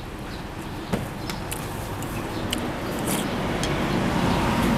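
A road vehicle approaching, its noise growing steadily louder, with a few faint clicks over it.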